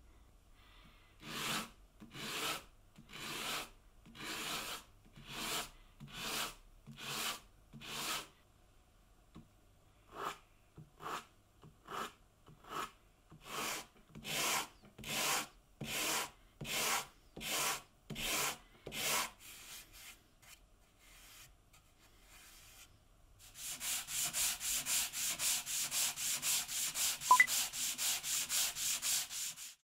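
Sandpaper on a sanding block being rubbed back and forth by hand over a wooden board: slow strokes about one a second at first, then quicker ones, and near the end rapid short strokes about five or six a second. A single sharp tick sounds during the rapid strokes.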